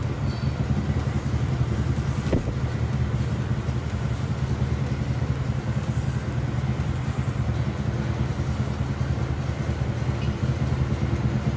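Chinese lion dance drum beaten in a fast, continuous roll, with cymbals clashing along with it.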